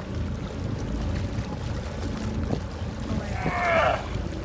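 Wind on the microphone and water lapping around a floating wooden raft on a lake. About three seconds in comes a brief high cry that bends and falls in pitch.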